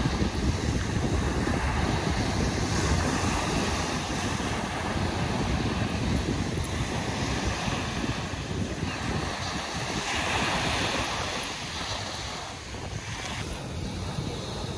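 Ocean surf breaking and washing onto a sandy beach, with wind buffeting the microphone as a low rumble.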